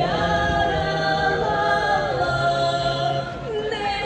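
A group of voices singing a Latvian folk song a cappella, several singers holding long notes together in a slow phrase that ends about three and a half seconds in before the next phrase begins.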